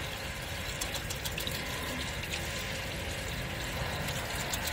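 Ready-mixed emulsion coolant being poured from a bucket into a chain link fence machine's tank: a steady splashing fill.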